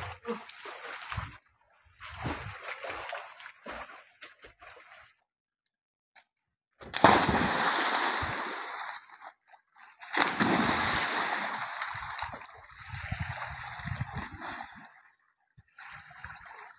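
People splashing in a swimming pool, with bodies jumping or diving in. Two big splashes land about seven and ten seconds in, each followed by churning, sloshing water, and the sound is broken by a few abrupt silent gaps.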